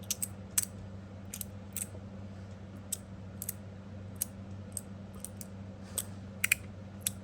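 Copper and stainless steel magnetic fidget slider being worked back and forth, its plates snapping into their magnetic detents with sharp metallic clicks at an irregular pace, some in quick pairs.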